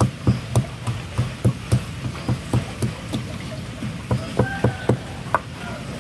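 Wooden pestle pounding in a white ceramic bowl used as a mortar, a steady run of knocks about three to four a second, crushing lime seeds fine.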